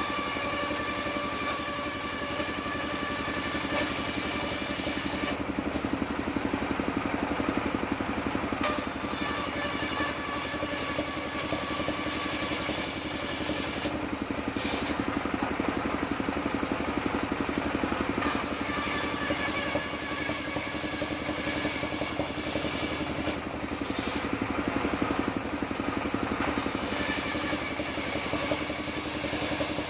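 A stationary engine drives a table circular saw, running steadily while the blade rips long planks of waru wood. The blade's high whine changes several times as cuts start and end.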